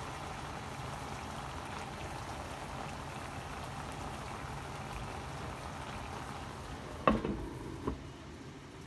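Crab, ground pork and bottle gourd stew simmering in a pan, a steady bubbling. About seven seconds in, a glass pot lid is set on the pan with a clank and a second lighter knock, and the bubbling is muffled after that.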